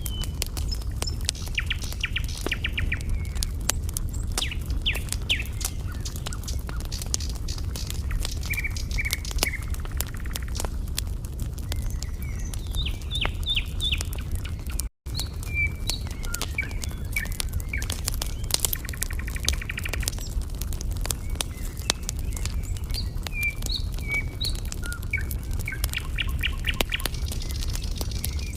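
Wood fire crackling with frequent sharp pops over a low rumble, while small birds chirp on and off. The sound cuts out for a split second about halfway through.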